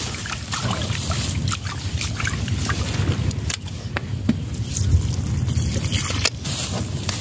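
Raw rice being rubbed and swished by hand in water in an aluminium pot, the water sloshing, then the cloudy rinse water being poured off near the end.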